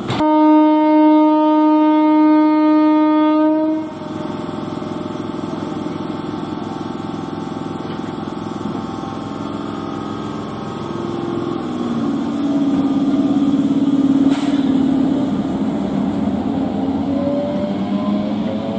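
MEMU electric multiple unit train sounding its horn in one steady note for nearly four seconds. Then the coaches rumble past over the rails, and a rising motor whine comes in past the middle as the train picks up speed.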